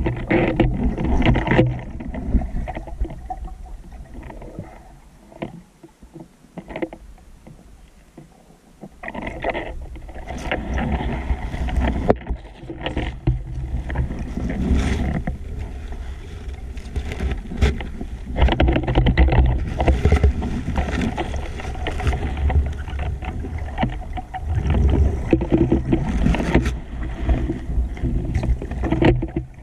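Muffled underwater rumble and swishing of water against a waterproof camera housing as a diver swims with a speargun and brushes through water weeds, with irregular knocks and rustles. It goes quieter for a few seconds starting about four seconds in.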